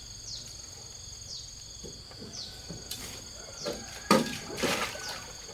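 Insects trilling steadily in high-pitched tones, with short falling chirps about once a second. About four seconds in comes a sudden knock followed by a brief noisy rush, the loudest sound.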